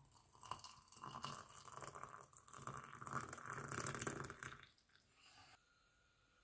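Hot water poured from a stainless steel electric kettle into a ceramic mug over a tea bag, splashing and trickling for about four seconds before the pour stops.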